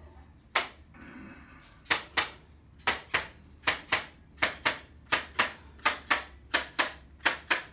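A single sharp click, then from about two seconds in a steady run of sharp clicks in close pairs, about one pair every 0.8 s, made during a chiropractic treatment.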